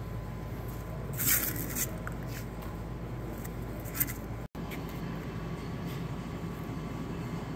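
Steady low hum of the shop, with a brief papery scrape about a second in as abrasive cloth strips are slid across a cardboard-covered bench. A small click comes near four seconds, and the sound drops out for an instant halfway through.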